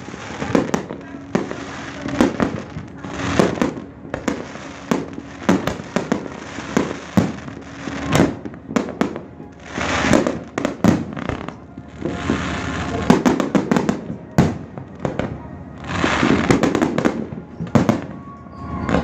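Aerial fireworks bursting in a steady stream of bangs and crackles, with thick clusters of reports about halfway through and again a little later.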